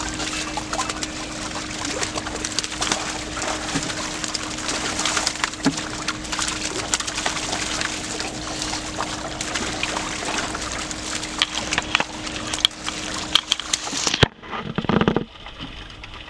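Live fish thrashing and splashing in a hand-held net full of water: a dense run of splashes and wet slaps over a steady low hum. About fourteen seconds in the sound changes abruptly to duller, quieter splashing with one short loud burst.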